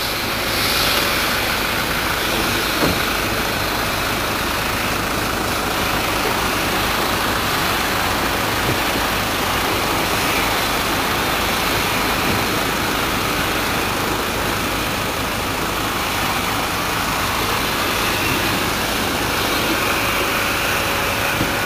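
A van's engine idling steadily while the van slowly reverses a loaded trailer.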